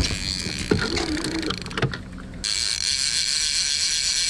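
Single-action salmon reel clicking as line goes on and off the spool while a hooked Chinook salmon is played: a few knocks and clicks in the first half, then a steady high ratcheting whir from just past halfway.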